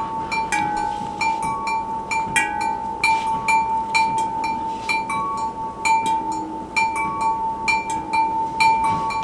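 Tall glass candle-holder cylinders flicked with the fingers in a quick, steady rhythm, several flicks a second: each flick a sharp tick followed by a ringing glass tone. One main note rings through, with a few higher notes from other glasses mixed in.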